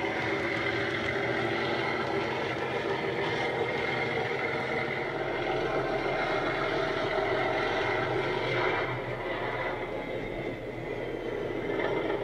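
Model-railway DCC sound decoder reproducing a Class 37 diesel's English Electric engine through a small EM1 speaker, running with a steady drone as the model moves away. It gets a little quieter about nine seconds in.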